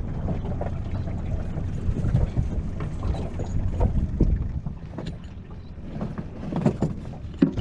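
Wind buffeting the microphone as a steady low rumble, with scattered light knocks and clicks and a few sharper knocks near the end.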